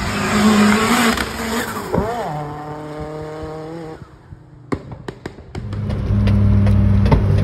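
Turbocharged 1.6-litre M16 four-cylinder of a heavily modified Suzuki Swift Sport running and revving, the pitch sweeping up and then easing down. About two-thirds of the way in comes a quick run of sharp pops, then a steady low engine drone.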